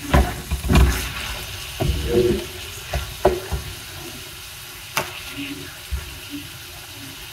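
Kitchen clatter: several knocks and clinks of cookware and utensils in the first few seconds, then a couple of single clicks, over a steady hiss.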